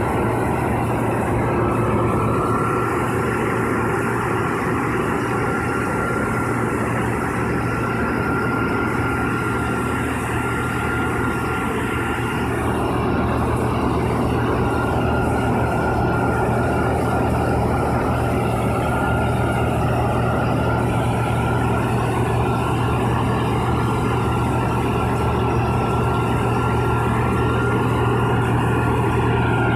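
4YZ self-propelled corn harvester's diesel engine running steadily, with a constant low hum and a thin, steady high whine over it.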